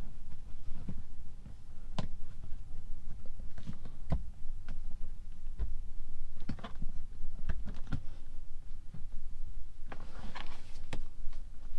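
Irregular clicks and knocks of Tesla dashboard plastic trim being handled and unclipped, with a cluster of clicks near the end.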